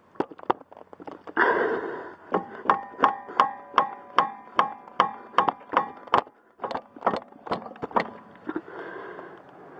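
Metallic clicks, about two or three a second, each with a short ring, from a wrench being worked back and forth on a nut on the car's rear suspension. A louder scraping rush comes about a second and a half in.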